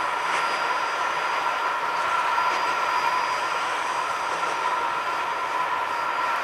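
Climax geared steam locomotive hauling a short passenger train past at a distance: the steady noise of the running train, with a steady high-pitched ringing tone held over it.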